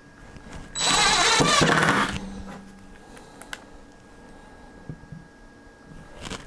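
Cordless power driver running a screw down tight into the base of a crokinole board, in one burst of just over a second starting about a second in, followed by a few faint clicks.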